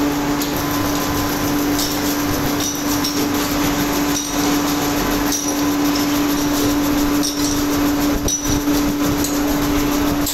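Cast aluminium motorcycle brake shoes being snapped off their casting tree and falling into a steel tub: a string of sharp metallic clinks and knocks, roughly one a second, over a steady machine hum.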